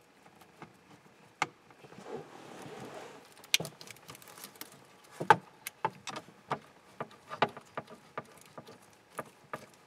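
Irregular light clicks and taps of a Torx bit and bolts being started by hand behind a steering wheel to fasten the driver's airbag module, with a brief rustle about two seconds in.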